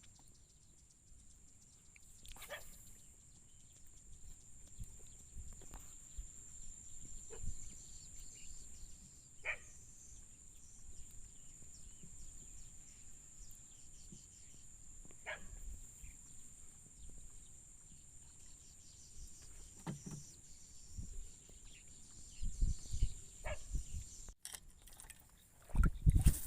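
Quiet outdoor ambience: a steady faint high-pitched hiss with scattered light clicks and knocks, and a few dull low thumps near the end.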